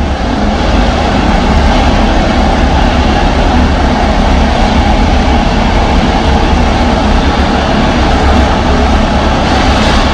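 Several Suzuki motorcycles running together inside a steel-mesh globe of death, a loud steady massed engine drone with no single rev standing out.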